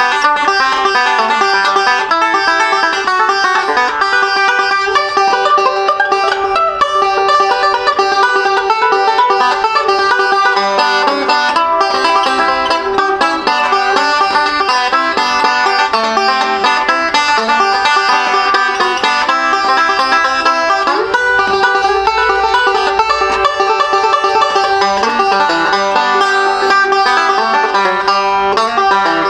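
Banjo picked in a continuous run of quick notes, bright and loud. It is played open without any muting, the full volume that the player calls loud.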